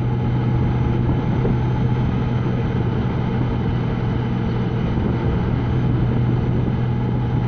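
Honda Gold Wing touring motorcycle riding at a steady cruising speed: a steady low engine hum under even wind and road noise, with no change in speed.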